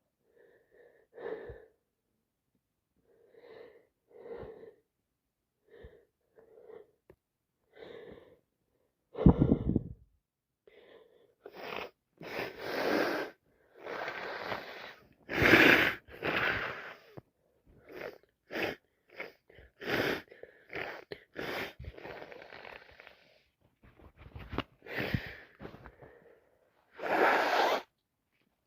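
A person with a heavy, wet head cold sniffling and taking short catching breaths for the first several seconds, then a loud sneeze about nine seconds in. After it comes a long string of further noisy sneezes and heavy sniffing.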